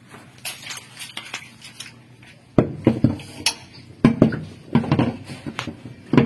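Metal tools and parts clinking and clanking as they are handled, faint and scattered at first, then a run of louder, sharper knocks from about two and a half seconds in.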